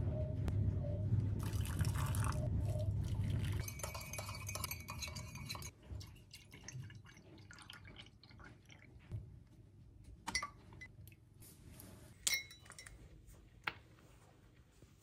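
Iced coffee being made in enamel mugs. At first a low hum with spoon scraping and pouring sounds, then milk poured in more quietly, and three sharp clinks in the last few seconds as ice cubes drop into the mugs.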